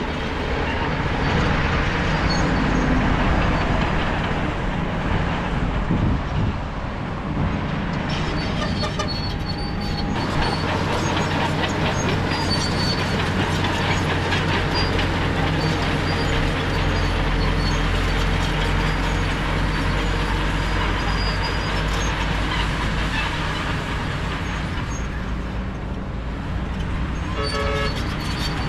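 Crawler bulldozer's diesel engine running under load, with the rattle and clank of its steel tracks.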